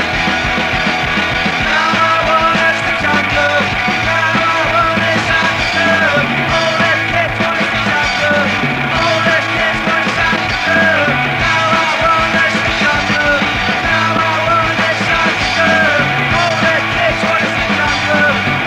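A punk rock song from a band of electric guitar, bass and drums, playing loud and steady.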